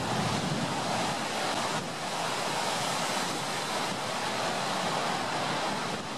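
Heavy surf on a rough sea: large waves breaking and churning into whitewater, a steady rushing wash of water.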